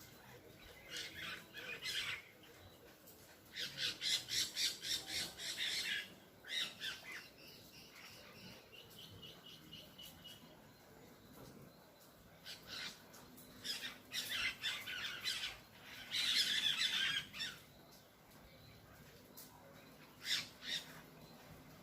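A bird squawking: harsh calls delivered in rapid bursts, several clusters of them with short pauses between.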